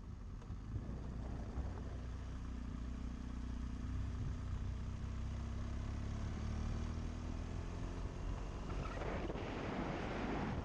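BMW GS adventure motorcycle's engine running at low road speed, its low hum drifting gently up and down with the throttle. Wind rushes over the microphone, faint at first and building again near the end as the bike picks up speed.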